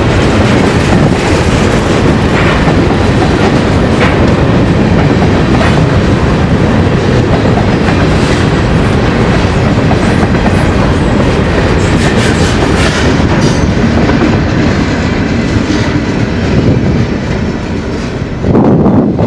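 Freight train of tank cars and covered hopper cars rolling past at a grade crossing, steel wheels clacking over the rail joints under a steady rumble.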